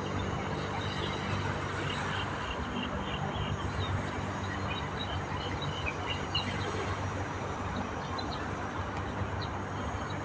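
Small birds chirping in short, high, scattered notes over a steady low rumble and hiss, with a low hum underneath.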